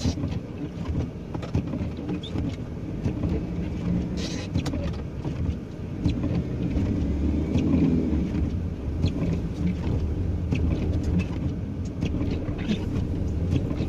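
Delivery van engine running at low speed, heard from inside the cab as it drives slowly through snow, with scattered short clicks over a steady low rumble.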